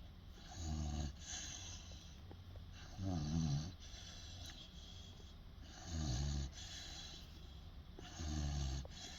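A 16-week-old Boerboel puppy snoring in its sleep: four low snores, about one every two and a half seconds, each with an airy hiss of breath around it.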